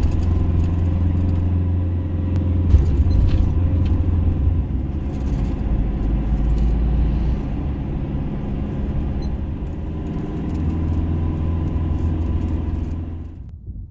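Motor vehicle driving: a steady low engine hum and road rumble that cuts off suddenly near the end.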